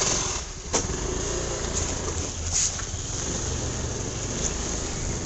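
Honda two-wheeler's engine running steadily while riding over a rough dirt lane, with two sharp knocks in the first second.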